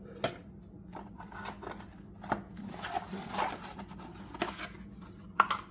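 Unboxing handling sounds: a small plastic alarm unit set down on a stone countertop, cardboard box flaps rustling and scraping, and scattered sharp clicks and taps, the sharpest a little before the end.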